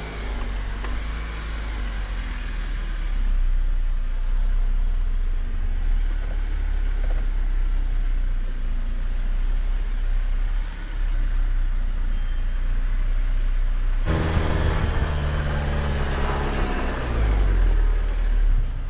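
Jeep Wrangler's engine running as the vehicle crawls off-road, with a steady deep rumble. About fourteen seconds in it suddenly grows louder, and its pitch rises and then falls as the engine is given more throttle.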